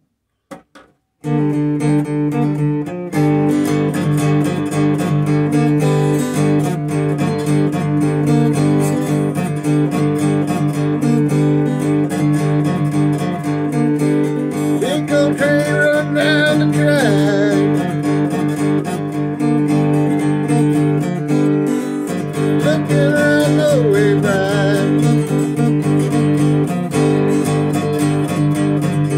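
Acoustic guitar strummed steadily, with a harmonica in a neck holder playing wavering, bending melody lines over it. The playing starts about a second in.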